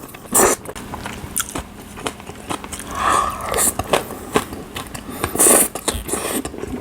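Close-miked mouth sounds of eating kimchi udon hot pot with fish cakes: biting and chewing with many small wet clicks, and three louder noisy bursts, near the start, in the middle and near the end.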